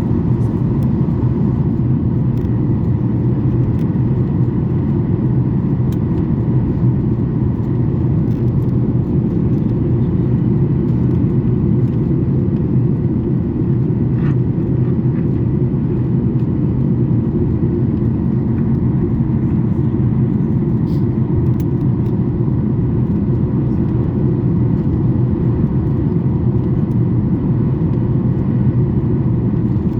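Cabin noise of a Boeing 737 MAX 8 in flight: the steady, even sound of its CFM LEAP-1B jet engines and the airflow over the fuselage, heavy and low in pitch, with a faint steady hum higher up.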